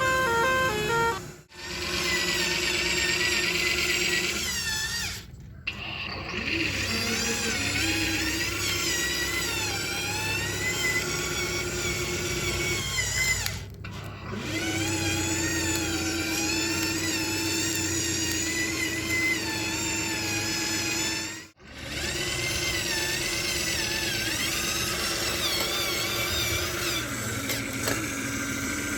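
Telolet 'basuri' horn tune: a warbling, flute-like melody over a steady low drone, broken by four brief gaps.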